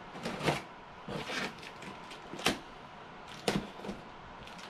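A box and its packaging being handled and worked open: short scrapes and rustles with scattered sharp knocks, the loudest about two and a half and three and a half seconds in.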